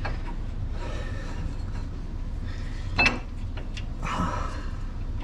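A single sharp metallic clink about three seconds in, from metal tools or hardware being handled, followed by a brief scrape, over a low steady hum.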